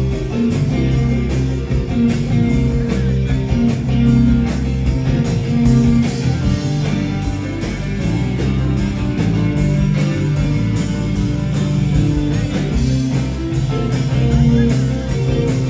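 Rock band playing live: guitar over bass and a drum kit, with steady regular drum hits.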